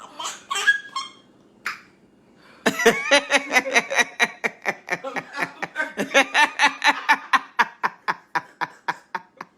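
Long fit of hearty laughter: a steady run of rapid 'ha' pulses, about five a second, that tails off toward the end. A few short vocal sounds come before it.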